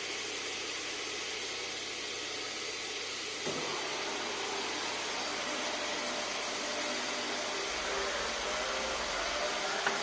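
Tecnolegno TGL 640 woodworking machine running with a steady rushing noise. About three and a half seconds in there is a click and the noise grows a little louder, with faint whining tones and a low hum later on.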